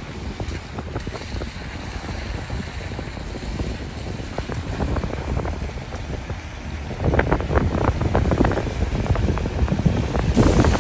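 Wind buffeting a phone's microphone from a moving car, over the road noise of tyres on wet tarmac. The buffeting grows louder and choppier about seven seconds in.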